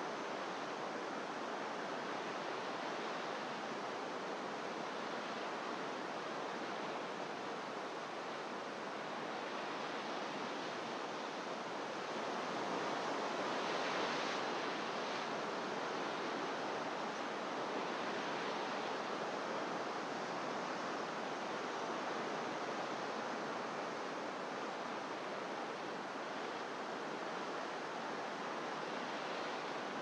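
Pacific surf breaking on rocks far below, a steady rushing wash that swells a little about halfway through.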